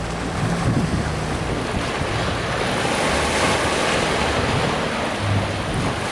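Steady rushing of wind buffeting the microphone, with brief low hums near the start and near the end.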